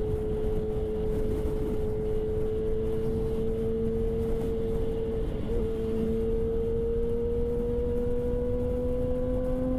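Kawasaki ZX-10R's inline-four engine running at highway speed, its steady note climbing slowly as the bike gathers speed, with a brief hitch about five and a half seconds in. Wind rushes over the helmet-mounted microphone underneath.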